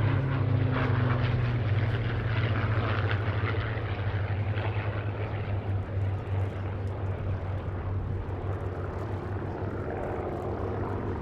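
Hawker Hurricane's Rolls-Royce Merlin V12 engine droning overhead, a steady low drone that slowly fades as the aircraft moves away.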